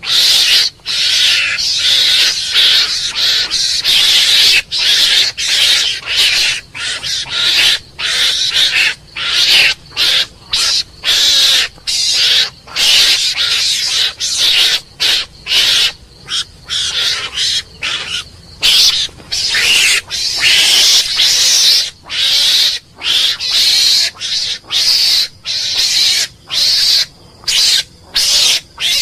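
Mongoose calls: a high, raspy chatter in quick, irregular bursts, several a second, with brief gaps between them.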